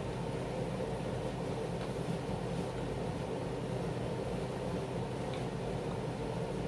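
Room air conditioner running on its fan setting: a steady hum and hiss.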